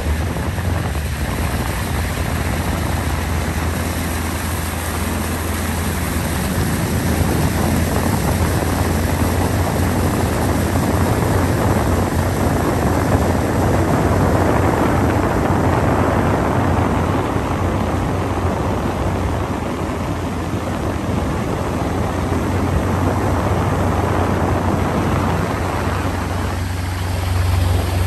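Motorboat engine running steadily with the boat under way, a low steady hum under a broad rush of wind and water.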